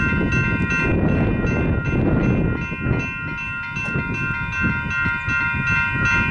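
Railroad grade-crossing bell ringing steadily, about four to five strikes a second, under an uneven low rumble.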